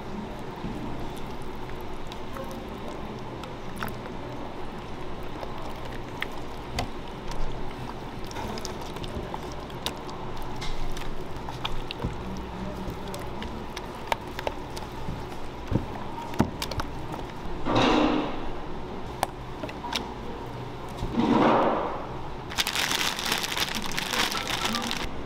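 A spatula stirring and scraping thick corn cream filling in a stainless steel pan: small clicks and wet squelches over a steady kitchen hum, with two louder swishing sweeps in the second half. Near the end a plastic piping bag crinkles as it is opened over a gloved hand.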